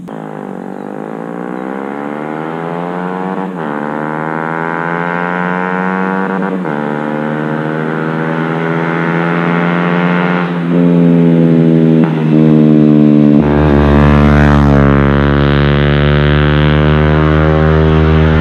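KTM Duke 125's single-cylinder four-stroke engine through a Radical Racing full exhaust system, accelerating up through the gears. The pitch climbs steadily and drops back at each upshift, about every three seconds, and the sound grows louder, with a deep low rumble coming in near the end.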